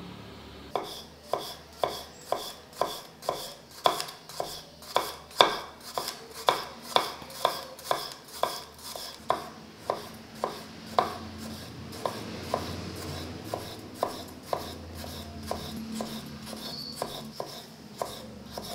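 Kitchen knife slicing a tomato on a wooden board, the blade knocking the board about twice a second. The knocks are steady at first and turn softer and less regular after about eleven seconds.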